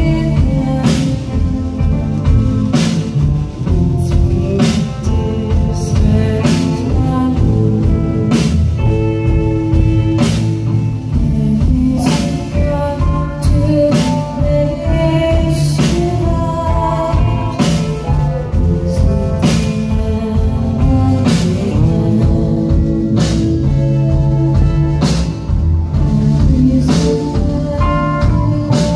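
Live psychedelic rock band playing loud: electric guitars over a drum kit, with cymbal crashes about every second or two.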